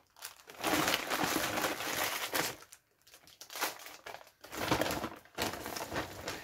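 Plastic packaging crinkling and rustling as items are pulled out of a plastic mailer bag and handled, in three bursts with short pauses between them.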